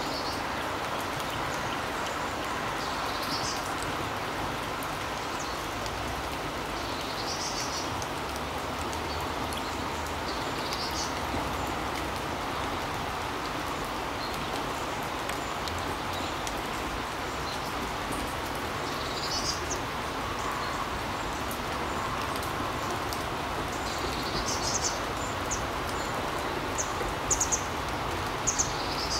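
Birds chirping in short, high calls every few seconds, more often near the end, over a steady background hiss.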